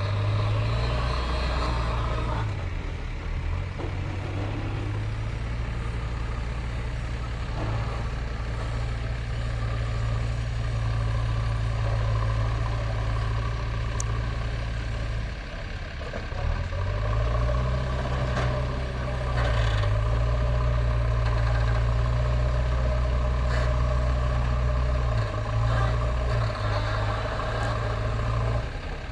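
Diesel engine of a 76 hp JCB backhoe loader running steadily while it works. It eases off briefly about halfway through, then runs louder and harder.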